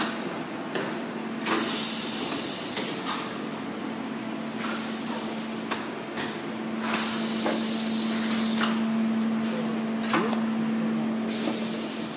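Compressed air hissing in four loud bursts, each a second or two long, from a PVC urine bag high-frequency welding machine's pneumatic press, over a steady low machine hum.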